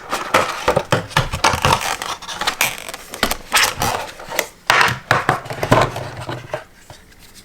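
Earphone packaging being handled and opened: a close, busy run of scratching, scraping and clicking that stops about six and a half seconds in.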